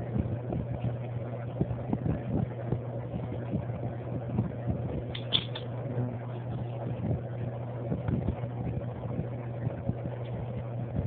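Butterfly knife being flipped open and closed, its handles clicking against each other many times at an uneven pace, over a steady low hum.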